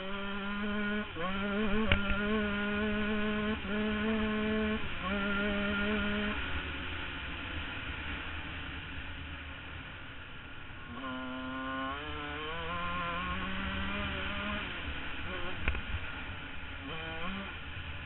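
Husqvarna CR125 two-stroke single-cylinder dirtbike engine accelerating through the gears, its pitch climbing and stepping down at each shift, then off the throttle for several seconds with wind rushing over the microphone, then back on the throttle with short blips near the end. Two sharp knocks from bumps in the trail.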